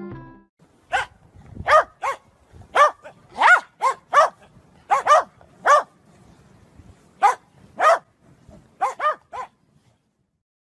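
A dog barking repeatedly: about fifteen short, pitched barks in quick clusters of two or three, with brief pauses between the clusters.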